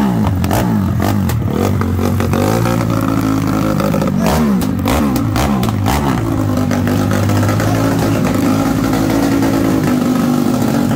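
Modified single-cylinder OHC motorcycle engine with an aftermarket muffler, revved in several quick blips over the first six seconds, with a few sharp clicks among them. It then settles into a steady, fast idle.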